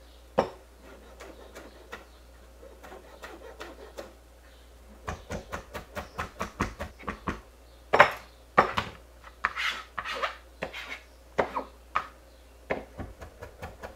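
Chef's knife chopping cilantro on a plastic cutting board: a few light taps at first, then quick, steady chopping from about five seconds in, at about four knocks a second.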